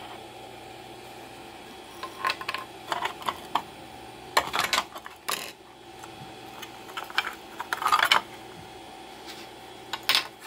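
3D-printed plastic parts clattering and clicking as they are handled and fitted together, in several irregular bursts, over a steady faint hum.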